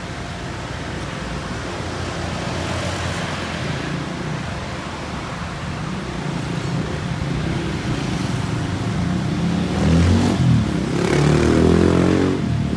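Road traffic running steadily, with a motor vehicle engine rising in pitch and growing louder near the end.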